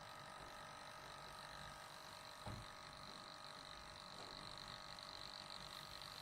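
Printer running as it prints out a QC graph: a faint, steady mechanical whine of several tones, with one soft knock about two and a half seconds in.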